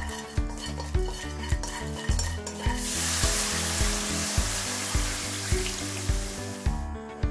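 Dried anchovies and dried shrimp stirred with chopsticks in a hot, dry nonstick wok, with light scraping clicks. From about three seconds in, water is poured into the hot pan, hissing and splashing for about four seconds before stopping shortly before the end. Background music with a steady beat plays throughout.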